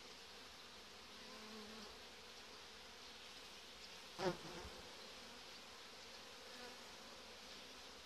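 Faint, steady hum of honeybees on the uncovered frames of an open hive, with one brief louder sound about four seconds in.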